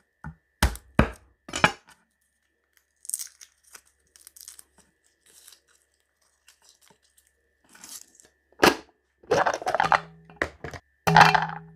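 Food preparation: a few sharp chopping knocks on a cutting board, then quieter crinkling and tearing of packaging, then louder knocks and scraping toward the end.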